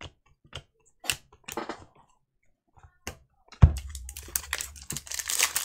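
Baseball cards being handled with light clicks and taps, then about three and a half seconds in a thump, followed by steady crinkling of a Topps Chrome foil pack wrapper being opened.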